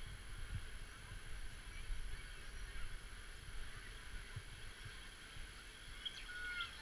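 Steady hiss of water rushing over a weir, under an uneven low rumble of wind on the microphone, with a few short bird chirps near the end.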